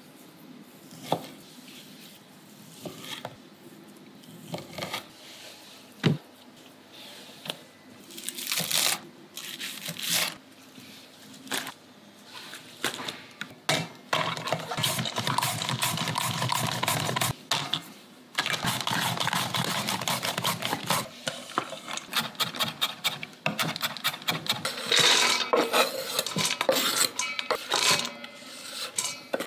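Kitchen prep sounds: a chef's knife cutting through a block of ham onto a wooden cutting board, with scattered knocks of the blade on the board. Then a carrot is run quickly and repeatedly across a julienne slicer over a stainless steel bowl, a fast rasping and clattering, and near the end the shredded carrot is tipped off a board into the metal bowl.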